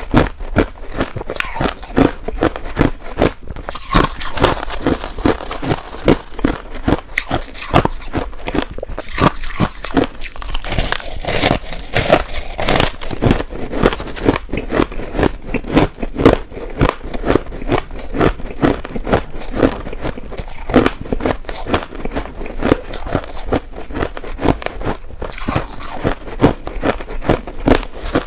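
Crushed white ice being bitten and chewed right at a clip-on microphone: a dense, continuous run of crisp crunches and crackles, several a second.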